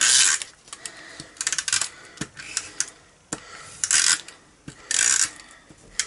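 Snail tape-runner adhesive rolled across paper in about five short rasping strokes, roughly one a second, with small clicks between them; the crafter says the snail is playing up.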